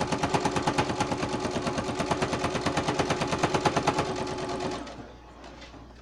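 Electric sewing machine stitching at a steady fast pace, its needle strokes ticking about ten times a second over the motor's hum, then stopping near the end.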